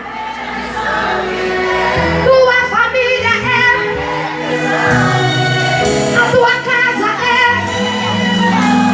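Live gospel music: a band playing with voices singing over it.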